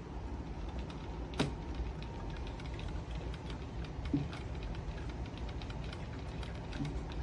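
A steady low hum with three light clicks or knocks spread through it, the first the sharpest.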